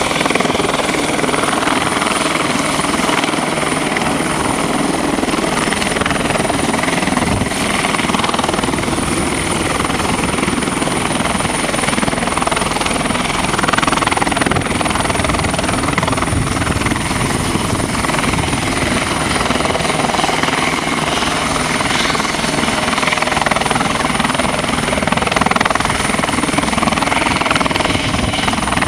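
Airbus Helicopters EC120 Colibri, with its single Turbomeca Arrius turboshaft, running in a low hover close to the ground: loud, steady rotor and engine noise with a thin high-pitched turbine whine over it.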